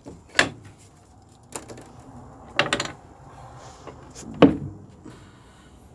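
Piano key cover being handled and closed over the keys: several separate knocks and clatters, the loudest a thump about four and a half seconds in.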